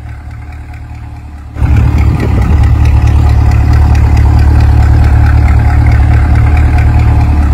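2020 C8 Corvette's 6.2-litre LT2 V8 idling with a steady, deep note. It gets much louder suddenly about a second and a half in, heard close to the rear quad exhaust tips.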